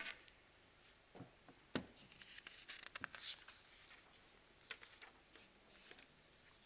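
Near silence: room tone with a few faint, scattered knocks and rustles, the loudest about two seconds in.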